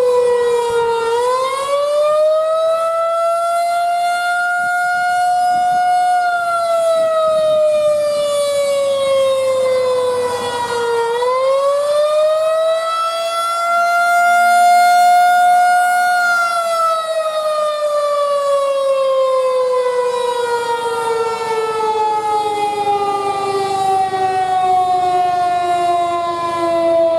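Federal Signal 2001-130 outdoor warning siren sounding a loud wail. Its pitch rises for about five seconds, falls, rises again, then falls steadily through the last ten seconds.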